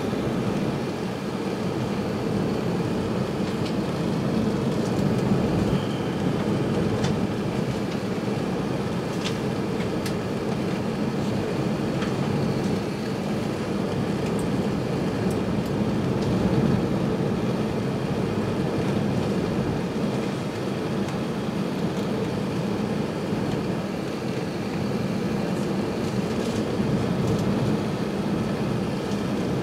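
Airbus A380 cabin noise in flight: a steady rumble of the engines and rushing air, heard from a window seat over the wing.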